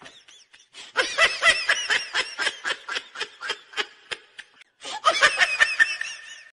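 A person laughing hard in quick repeated bursts, with a short break about four and a half seconds in.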